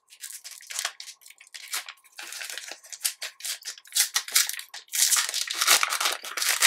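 Foil trading-card pack wrapper being torn open and crinkled by hand: a run of sharp crackles that grows denser and louder about five seconds in, as the wrapper is pulled apart.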